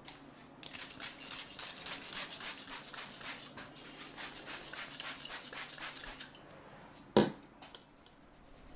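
Fingers rubbing and scratching quickly over scalp and hair during a head massage, about five or six strokes a second, stopping after about six seconds. A single sharp crack follows about a second later, with one or two faint clicks after it.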